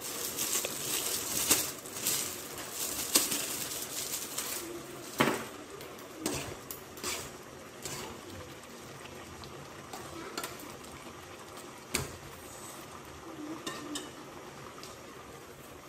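Spoon stirring in an aluminium cooking pot, with many clinks and scrapes of utensils against metal. They come thickest in the first few seconds, with a louder knock about five seconds in and another about twelve seconds in.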